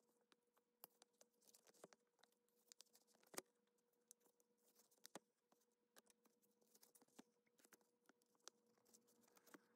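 Near silence with faint, scattered ticks and rustles of hand sewing: a needle and double strand of thread pushed and pulled through layers of fabric in repeated whip stitches. The sharpest tick comes a little past three seconds in.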